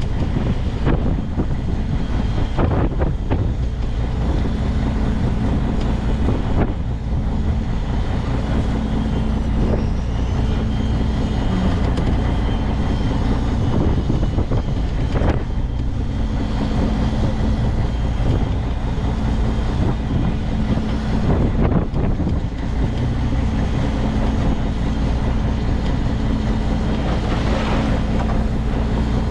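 Fishing boat's engine running steadily, with wind on the microphone and a few scattered knocks.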